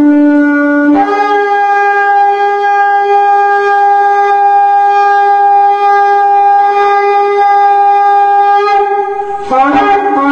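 A long horn blast. A short lower note steps up about a second in to a higher note held steady for about eight seconds, then breaks into short, separate notes near the end.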